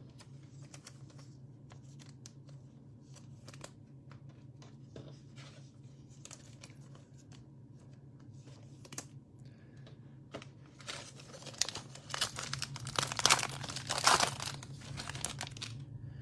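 Foil wrapper of a football trading-card pack being torn open and crinkled, loudest from about eleven seconds in. Before that come only faint clicks and rustles of cards being handled.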